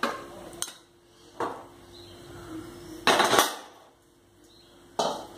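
Cookware clattering on a steel gas stovetop as a pressure-cooker pot is lifted off the burner: a few sharp metal knocks, with a louder, longer clatter about three seconds in.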